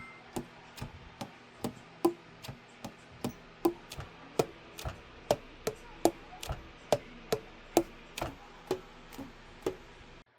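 A steady run of sharp clicks, about two and a half a second, each with a short pitched pop that changes from click to click.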